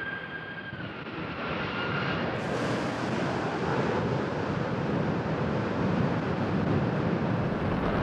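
Twin-engine jet airliner on approach with a steady engine whine that drops slightly in pitch about a second in. About two and a half seconds in it gives way abruptly to a louder, broad jet engine roar from another airliner landing.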